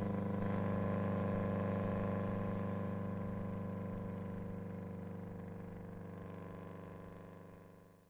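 A held, droning synth chord from the end of the background song, fading slowly to silence.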